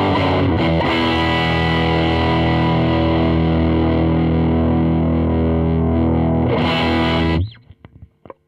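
Distorted electric guitar: a Les Paul through a Marshall Origin 20 amp on its gain channel. A chord is struck and left ringing for about six seconds, then cut off suddenly, leaving near silence for the last second.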